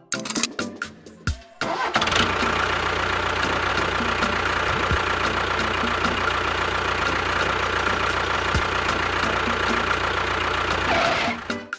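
A motor starts abruptly about two seconds in and runs steadily with an even hum, then cuts off shortly before the end. A little background music comes before it.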